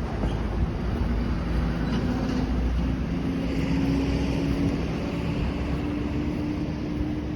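Steady low rumble of a moving vehicle, with a motor hum that slowly rises in pitch.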